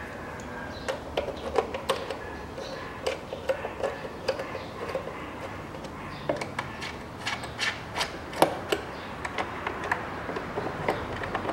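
Irregular sharp metallic clicks and taps from a small socket tool fastening the bolts of a plastic engine cover, with quicker runs of clicking about midway through.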